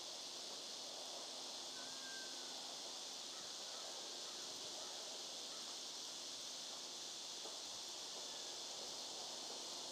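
Steady high-pitched chorus of insects, with faint scraping of a hand carving gouge cutting into a wooden cane stem.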